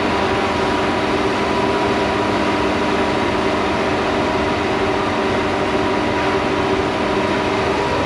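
Steady machine running noise: a constant hum with several held tones over an even rushing noise, unchanging throughout.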